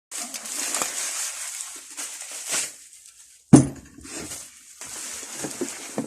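Handling noise, rustling and small clicks, with one loud knock about three and a half seconds in, as a 30 mm square steel bar is handled and set down.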